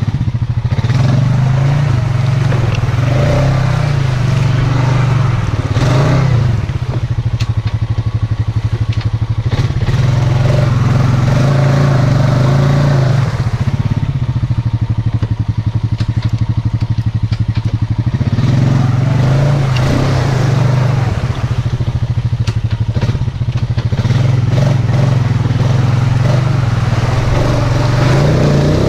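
Honda Rancher 420 ATV's single-cylinder four-stroke engine running loud and steady while being ridden, the revs rising and falling with the throttle.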